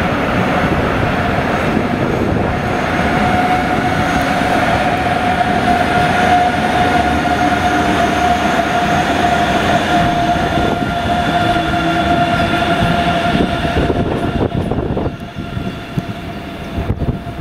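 DB class 146 electric locomotive and its double-deck coaches running past close by, a steady whine over the rumble of wheels on the rails. The noise drops off about fifteen seconds in as the train moves away.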